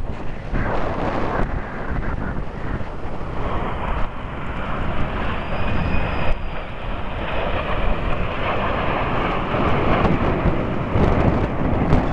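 Jet noise from the Red Arrows' BAE Hawk T1 jets passing overhead in formation, building from about four seconds in, mixed with wind buffeting on the microphone.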